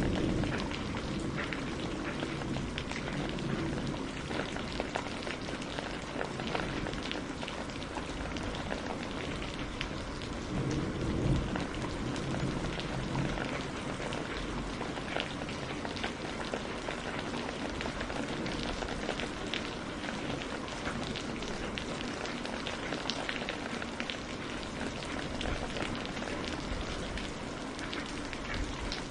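Steady heavy rain, many drops pattering on a surface, with low rumbles of distant thunder at the start and again about ten seconds in.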